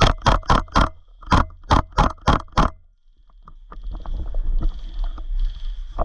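Airsoft gun firing single shots in quick succession, about nine sharp cracks in the first three seconds, over low rumbling handling noise. Quieter rustling and faint clicks follow.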